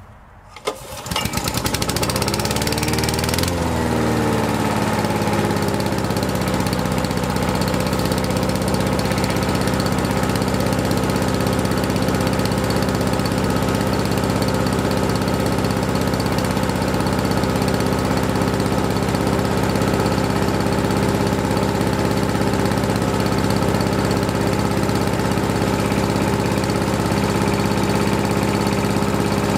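Honda GXV120 single-cylinder OHV engine of a Honda HR 214 lawn mower starting with one pull and catching within about a second. Its note shifts for the first few seconds, then it runs steadily.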